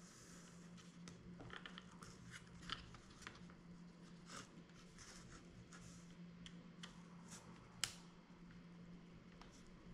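Faint clicks and ticks of a small screwdriver against the plastic housing and parts of a dashcam being taken apart. The two sharpest clicks come about three seconds in and about eight seconds in, over a low steady hum.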